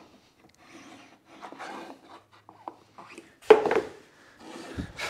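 A marking tool rubbing and scratching along the edge of a wooden box in a few short strokes, then a loud wooden knock on the bench about three and a half seconds in.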